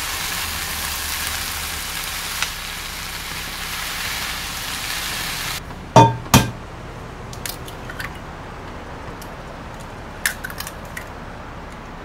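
Vegetables sizzling steadily in a frying pan. After about five and a half seconds the sizzle cuts off and eggs are cracked on the rim of a glass bowl: two sharp knocks close together, then a few lighter taps and clicks as more eggs are cracked and dropped in.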